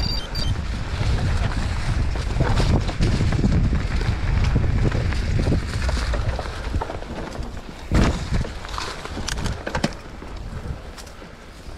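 Wind rumbling on a rider-mounted camera's microphone as a mountain bike descends a dirt woodland trail, with tyre noise and rattling from the bike over the rough ground. A sharp knock about eight seconds in and another just before the end.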